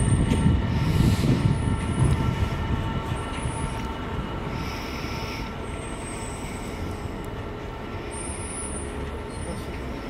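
Freight train of Network Rail IOA open box wagons rolling past, a steady rumble of wheels on rail that is loudest in the first couple of seconds. Thin high-pitched wheel squeals come and go over it.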